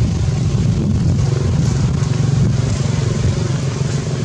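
Steady low rumble of a running engine, such as a motor vehicle.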